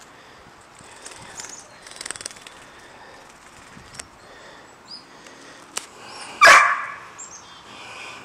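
A dog barks once, loudly, about six and a half seconds in, among a few short, high bird chirps.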